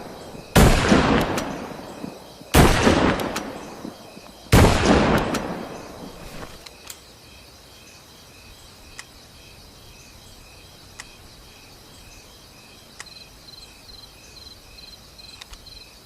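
Winchester Model 70 rifle fired three times, about two seconds apart, each shot sharp and followed by a long fading echo. Crickets chirp steadily in the background once the shots die away.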